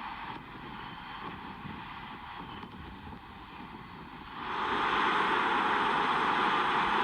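Combine harvester running steadily, growing clearly louder about four and a half seconds in.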